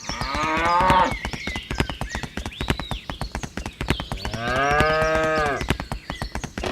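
Cow mooing twice: a falling moo at the start and a longer one about four seconds in. A fast, steady clicking runs under both.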